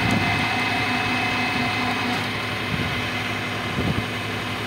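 A tow rig's engine and winch run steadily with a constant hum and whine, pulling an old fire engine on a chain up a tilted trailer deck. The sound eases a little about two seconds in.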